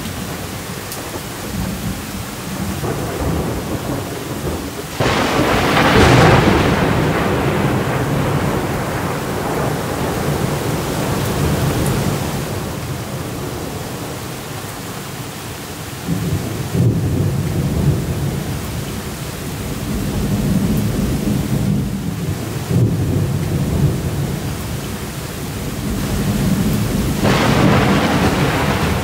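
Thunderstorm: steady rain with rolling thunder. A loud thunderclap about five seconds in rumbles away over several seconds, low rumbling rolls on through the second half, and another clap builds near the end.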